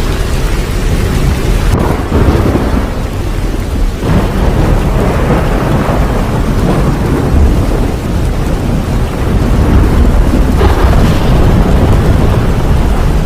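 Steady heavy rain with rolling thunder; deep rumbles swell about two seconds in, again at four seconds, and a longer one builds from about ten seconds in.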